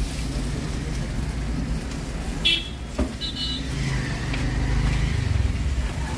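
Low steady rumble of street traffic, with a brief high squeal about two and a half seconds in and a sharp knock half a second later.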